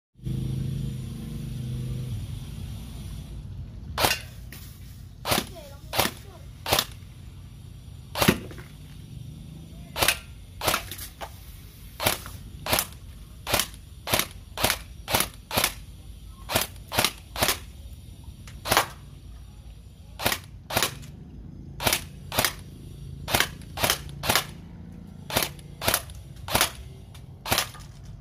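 Jinming J10 ACR-style airsoft electric gun, converted from a gel blaster, firing 6mm BBs in single shots, about thirty sharp snaps at irregular half-second to second-and-a-half spacing, starting about four seconds in.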